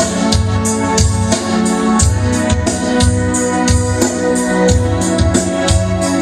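Live band playing without vocals: sustained keyboard/organ chords over a steady beat, with strikes about three times a second and a pulsing bass line.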